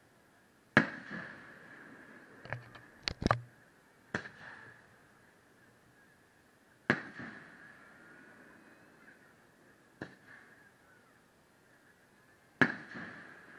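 Aerial fireworks shells bursting in a series of sharp bangs, each followed by an echoing rumble. The loudest come about a second in and near the end, with a quick cluster of reports around three seconds in. A faint steady high tone runs beneath.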